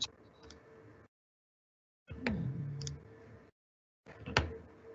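A few faint computer clicks while screen sharing is set up, the loudest near the end, with a brief low hum in between. The call audio drops to dead silence twice.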